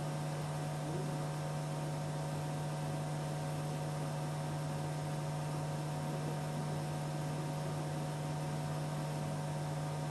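Steady electrical hum: a constant low hum with a few fainter, higher steady tones over a background hiss, unchanging throughout.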